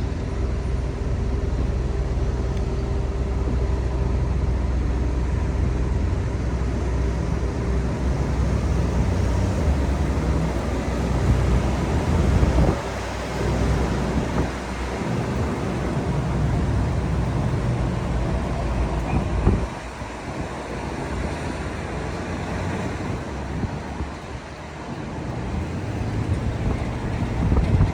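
Car driving on city roads: a steady low rumble of engine and tyre noise, with a few rises and drops in level as traffic and speed change.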